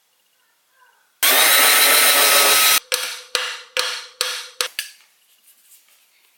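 A power drill whirring loudly for about a second and a half, then about five hammer blows in quick succession, each ringing and dying away.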